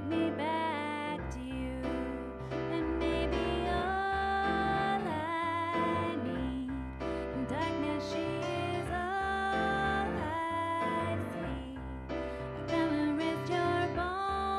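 A woman singing a melody into a microphone, holding long notes that slide between pitches, over chords played on a Nord Stage 2 keyboard.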